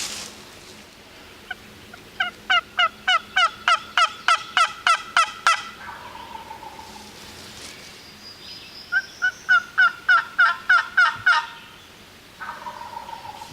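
Turkey yelping: two long runs of evenly spaced yelps, about four a second, the first starting about two seconds in and the second about nine seconds in, with fainter, lower calls between them.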